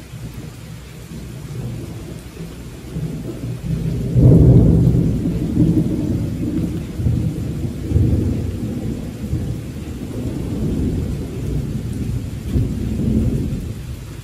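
Rolling thunder over steady rainfall. The rumble builds over the first few seconds, surges sharply about four seconds in, and rolls on in waves before easing near the end.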